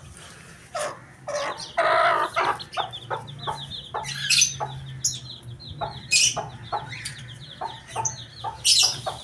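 Broody brown hen clucking in short, repeated calls, with her chicks peeping high and fast alongside.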